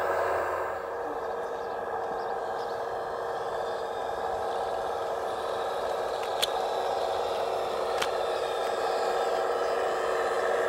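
Radio-controlled model rail excavator's electric motors running with a steady whine as the machine travels along its rail track. Two sharp clicks, a couple of seconds apart, come past the middle.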